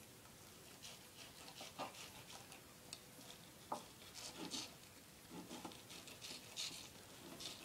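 Knife blade scraping and slicing walleye meat off its skin against a plastic cutting board: faint, irregular short scrapes.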